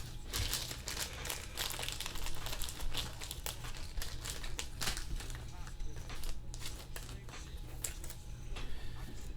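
Crinkling and rustling as sports cards and their packaging are handled: a continuous run of small crackles over a low steady hum.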